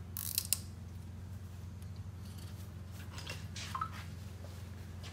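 Light metallic clicks and scrapes of hands and a tool working the timing belt and pulleys on an Evo 9 engine: a couple of sharp clicks near the start and a short cluster about three and a half seconds in, over a steady low hum.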